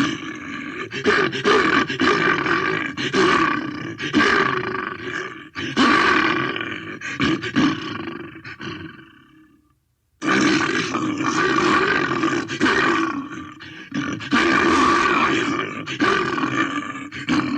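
Bear growling and roaring aggressively: a run of harsh, rough growls with sudden loud starts. About nine seconds in the growling fades out to a moment of silence, then breaks out again at full strength.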